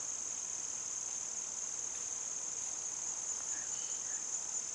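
Steady, high-pitched chorus of insects, an unbroken shrill trill.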